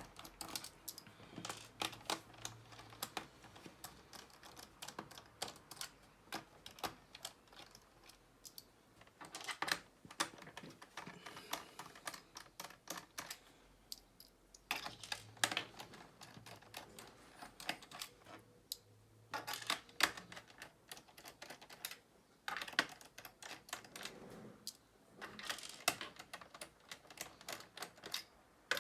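Small, irregular clicks and taps of a screwdriver turning out screws from a laptop's plastic bottom case, coming in clusters every few seconds.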